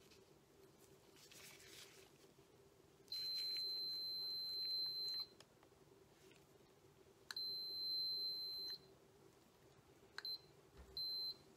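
Digital multimeter's continuity beeper sounding a steady high-pitched tone four times: a beep of about two seconds starting some three seconds in, another of about a second and a half, then two short ones. It beeps as the probes find continuity through the outboard fuel supply module's float switch under test.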